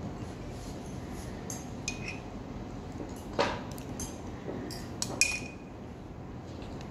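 Metal spoon clinking and scraping against a glass food container: a handful of sharp clicks, two with a brief ring, the loudest about three and a half seconds in.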